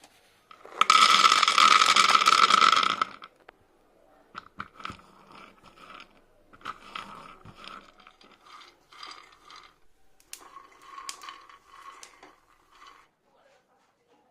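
Dry peanuts rattling and scraping against a pan: a loud rush of rattling for about two seconds, as if they are poured in, then quieter bursts of crunching and scraping as they are stirred.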